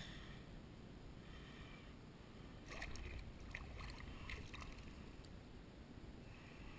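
Faint sloshing and dripping of shallow water around a landing net as a speckled trout is handled and lifted out of it, with a cluster of small splashes and ticks about three to four seconds in.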